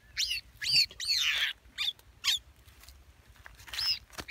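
A trapped bird held in the hand calling repeatedly: about six short, sharp, high-pitched calls, with one longer, harsher call a little after a second in.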